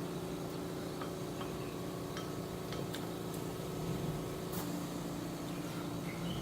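A few light clinks of eating utensils against a bowl, scattered over a steady low room hum.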